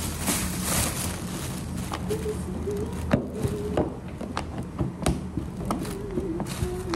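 Wooden rolling pin rolling dumpling dough on a cutting board, with several sharp knocks of the pin and hands against the board in the second half, over a steady low hum.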